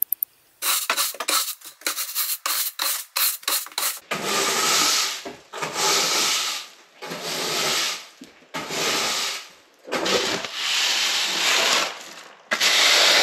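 Stiff-bristled push broom sweeping a dusty floor. The strokes are quick and short, about four a second, for the first few seconds, then longer, slower strokes of about a second each.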